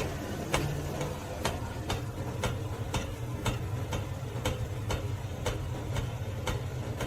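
Regular ticking, about two ticks a second, over a low steady hum.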